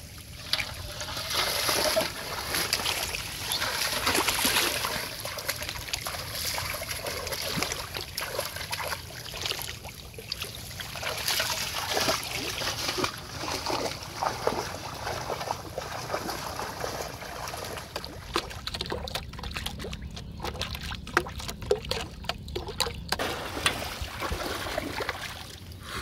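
Shallow muddy water splashing and trickling as a person wades through it and moves an aluminium pot in it, coming in uneven surges, with scattered short clicks and rustles in the second half.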